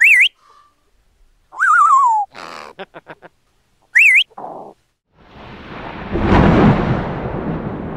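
Parrot whistles and chirps: a short wavering whistle rising at the start and again about four seconds in, with a falling warble and a quick run of clicks between them. Then a thunderclap swells a little after five seconds, peaks near six and a half seconds, and rumbles on as it fades.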